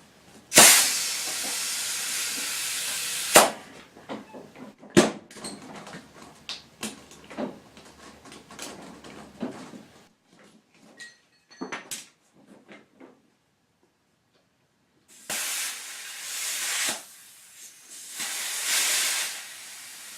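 Compressed air hissing from an air chuck into a lawn tractor tire in three bursts, the first about three seconds long and the last two near the end. Between them come scattered clicks and knocks.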